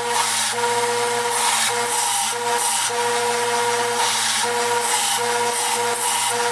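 Electric grinder running with a steady motor hum while its wheel grinds the edges of a hardened steel hammer-eye punch, the rasping grind coming in repeated strokes as the steel is pressed to the wheel.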